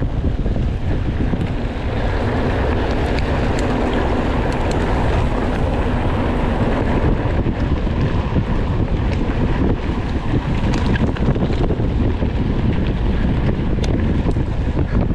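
Wind rushing over the microphone of a camera carried on a bicycle while riding at speed: a steady low rumble with scattered small clicks and rattles.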